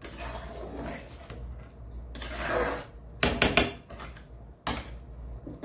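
A spatula stirring thick paneer masala gravy in an aluminium kadhai, with soft scraping swishes, then a quick cluster of sharp knocks of the spatula against the pan a little past three seconds in, and one more knock near five seconds.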